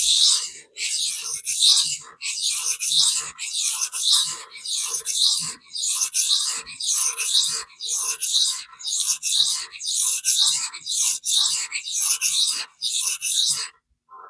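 Stainless steel knife blade being stroked back and forth on a vitrified diamond sharpening stone, a steady series of gritty scraping strokes about one and a half a second that stops near the end. The stone is cutting steel fast.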